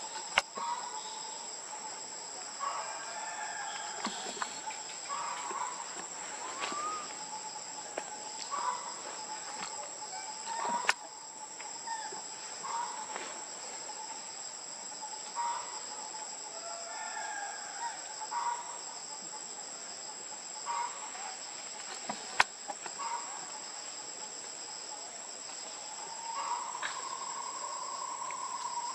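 Steady, high-pitched insect chorus, with short animal calls every second or two and a longer held call near the end. Three sharp clicks are the loudest sounds: one just after the start, one about eleven seconds in and one about twenty-two seconds in.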